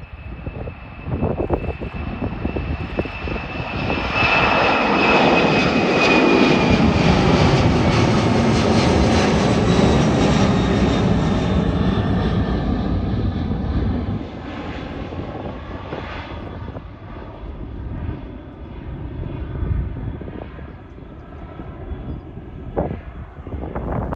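Twin turbofan engines of a Boeing 767 freighter at climb power as it passes over. The sound swells and is loudest from about four to fourteen seconds in, with a high whine that slowly falls in pitch, then drops back to a fainter, receding rumble.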